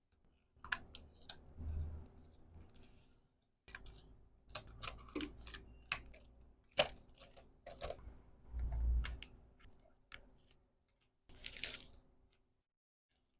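Close-up sounds of hands packing a small accessory order: scattered sharp clicks and taps of small items being handled and set down, with a couple of soft thumps. Near the end comes a short burst of packaging rustling. The sound drops to silence abruptly a few times, where the clips are cut together.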